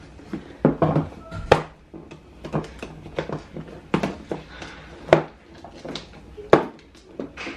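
Red plastic food-storage container and its lid being handled and fitted together: a run of sharp plastic clicks and knocks at uneven intervals, about one a second.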